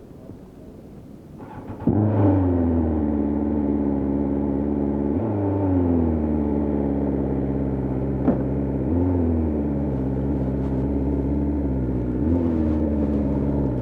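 BMW S1000R's inline-four engine starting about two seconds in, then idling, with a few light throttle blips whose pitch eases back down after each. A single sharp click near the middle.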